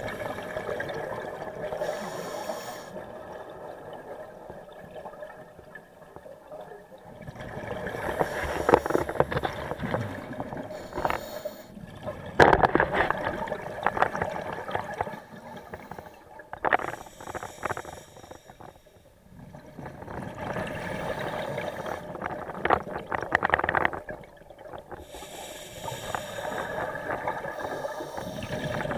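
Scuba diver breathing through a regulator: steady hissing in-breaths alternate with crackling bursts of exhaled bubbles, several breath cycles in a row.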